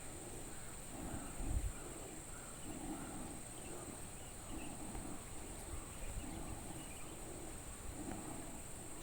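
Steady high-pitched insect chirring, with softer lower sounds recurring about once a second and a brief low thump about one and a half seconds in.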